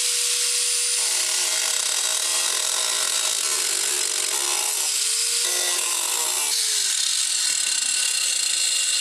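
Angle grinder cutting through the sheet-metal floor panel over a car's fuel tank: a loud, dense hiss over a steady motor whine. The whine rises as the disc spins back up about five seconds in, and the sound jumps abruptly about a second in and again past six seconds.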